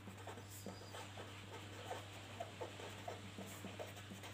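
Pen writing on paper: faint, irregular short scratching strokes, over a steady low hum.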